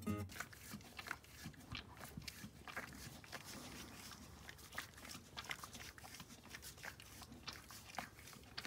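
A horse licking and gnawing at a lick block in a rubber feed pan: a faint, irregular run of small clicks.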